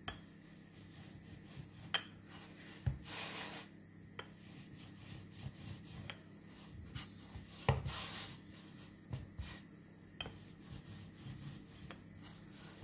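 Wooden rolling pin rolling dough flat on a wooden chopping board dusted with rice flour: quiet rubbing and swishing strokes, with a few light clicks of the pin against the board.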